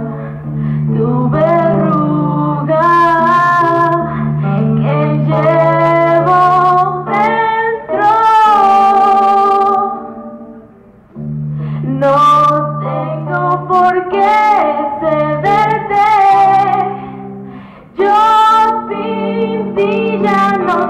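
A young woman singing a Spanish-language pop ballad into a microphone, accompanied by guitar. The music drops away briefly twice between phrases, about halfway through and again near the end, then picks up again.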